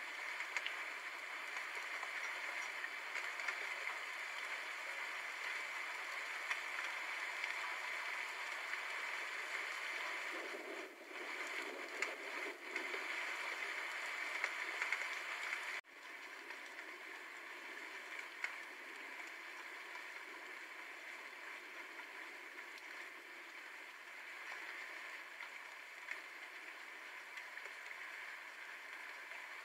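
Steady rain falling, a dense even hiss with no thunder. It dips briefly a little before halfway, then cuts off abruptly for an instant about sixteen seconds in and goes on slightly quieter.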